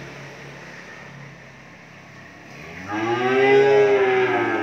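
A cow lowing: one long, low moo that starts a little past halfway and is still going at the end.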